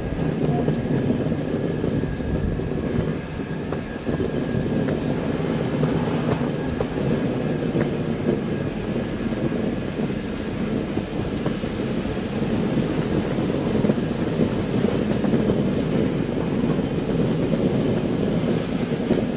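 Steady low rumble of a steam train at a station platform, with a faint thin tone held above it.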